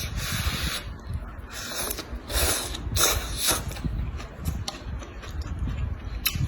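Close-miked eating: chewing and crunching seafood and noodles with wet, crackling clicks. Several louder noisy bursts come about two and three seconds in.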